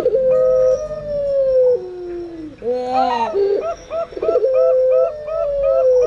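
Doves cooing: long, drawn-out coos of puter pelung doves that fall slowly in pitch, overlapping with quicker runs of short clipped coos from zebra doves (perkutut).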